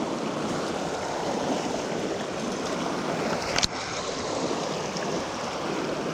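Fast river rapids rushing steadily, with one sharp knock about three and a half seconds in.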